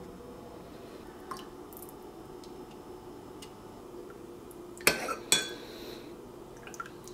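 Dishware handled on a hard surface: a faint tap about a second in, then two sharp clinks about five seconds in, as a coffee mug is moved and set down.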